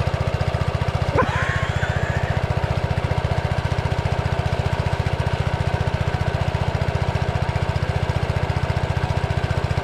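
Small engine of a water pump running steadily, draining a ditch, with a rapid even chugging. A short rising shout about a second in.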